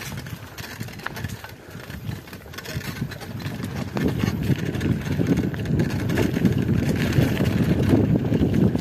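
Mountain bike rolling along a dirt trail: a rough, low rumble of wind buffeting the microphone and tyres on the dirt, getting louder about four seconds in as the bike picks up speed.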